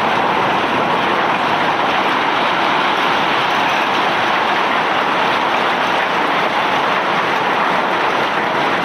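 Self-unloading barge discharging bulk cargo: a loud, steady rushing clatter of ore and rock pouring out without a break.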